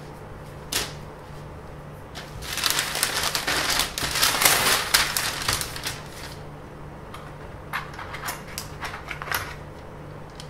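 A large sheet of paper rustling and crinkling as hands smooth it and lay a flexible drafting ruler over it, followed by a few light clicks and taps of tools on the workbench. A low steady hum runs underneath.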